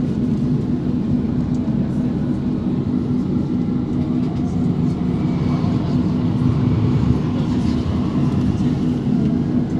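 Inside a moving tram: the steady hum of the traction motors and the rumble of steel wheels on the rails. Another tram passes close alongside near the end.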